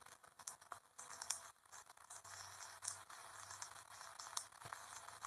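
Faint crackling hiss with scattered small clicks, and a low hum coming in about two seconds in.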